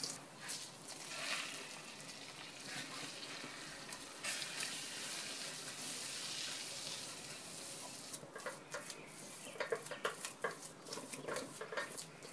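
Butter sizzling in a stainless steel pan, with flour going in about four seconds in and being stirred into a roux with a silicone spatula. In the last few seconds the sizzle fades as the roux thickens, and the irregular strokes of the spatula stirring against the pan take over.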